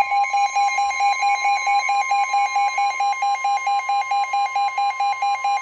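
NOAA Weather Radio warning alarm tone: a steady, loud 1050 Hz tone signalling a severe thunderstorm warning, with a rapid beeping alarm pulsing about four times a second over it.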